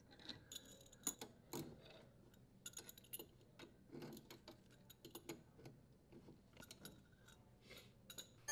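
Faint, irregular metallic clicks and ticks of a wrench turning a dishwasher's threaded steel leveling leg to lower the appliance.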